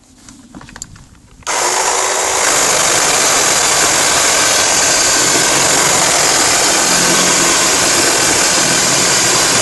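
Eckman 18-volt cordless electric chainsaw starting up about a second and a half in and running steadily and loudly as its chain cuts through a branch, a few small handling clicks before it starts.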